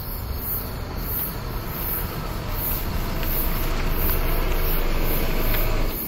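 A Ford sedan approaching on a paved road, its tyre and engine noise growing steadily louder as it draws near.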